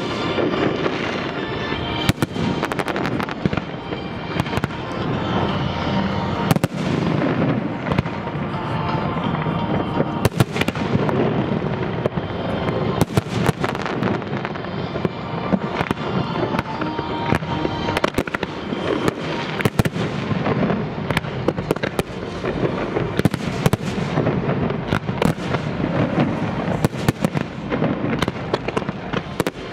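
Fireworks display: aerial shells bursting and ground fountains firing, a rapid irregular run of sharp bangs and crackles over a continuous dense wash of sound.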